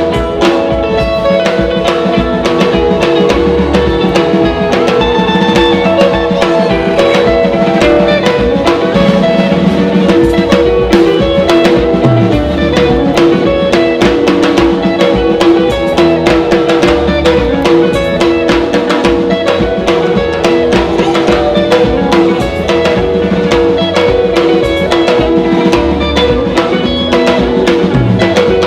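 Gospel music with a steady drum-kit beat of bass drum and snare under sustained chords.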